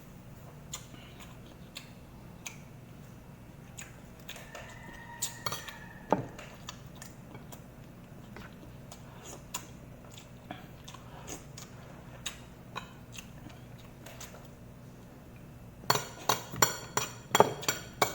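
Eating at the table: a spoon and dishware clinking now and then, with chewing. Near the end comes a quick run of sharp clinks.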